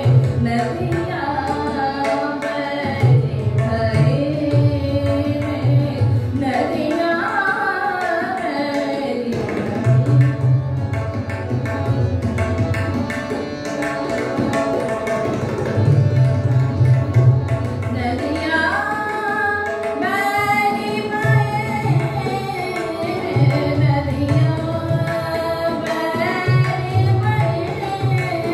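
Hindustani thumri in Raag Mishra Desh: a woman sings ornamented, gliding phrases, accompanied by tabla and harmonium.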